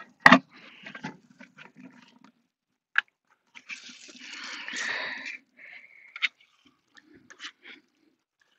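Kitchen handling sounds: a sharp knock just after the start, then scattered light clicks and a soft, wet rustle about four seconds in as a stuffed raw Cornish game hen is lowered into a metal roasting pan.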